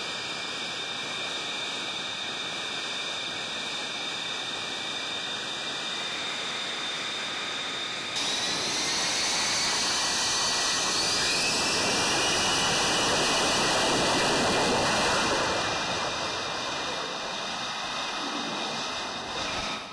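Lockheed Martin F-35B Lightning II jet engine whining steadily. About eight seconds in it turns suddenly louder, with a rising whine as it powers up for a ski-jump take-off. It is loudest a few seconds later and fades away near the end.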